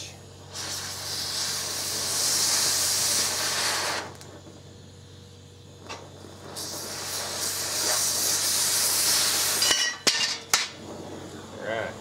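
Metal-cutting torch hissing loudly in two long blasts of about three seconds each as it cuts through steel bed-frame angle iron, with a quieter steady flame hiss between them. A few sharp metallic clinks follow near the end as the cut-off pieces drop.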